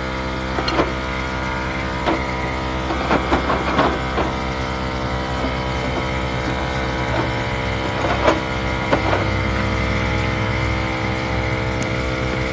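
Air compressor running steadily as it inflates a freshly plugged car tire, with a few scattered clicks and knocks of handling over it.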